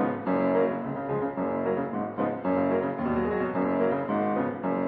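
Piano music, with notes and chords changing every half second or so.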